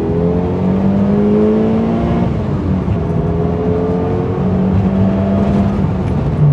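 Mitsubishi Lancer Evo VI Tommi Mäkinen Edition's turbocharged 2.0-litre four-cylinder pulling hard under acceleration, heard inside the cabin. The engine note climbs steadily, breaks about two seconds in, then climbs again.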